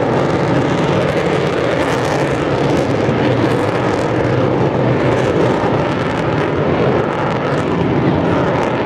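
Avro Vulcan bomber passing low overhead, the loud, steady jet noise of its four Rolls-Royce Olympus turbojets.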